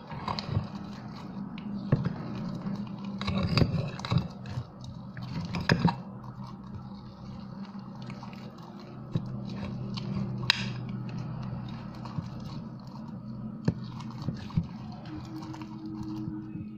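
Glue-and-Ariel-detergent slime being stirred and squished in a bowl: sticky, wet scraping with sharp clicks of the utensil against the bowl, over a steady low hum.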